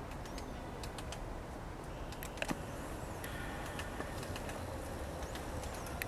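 Downy woodpecker pecking at a branch while foraging: irregular light taps, with a louder knock about two and a half seconds in, over steady low background noise. A couple of faint, high, short bird calls are heard near the start and near the end.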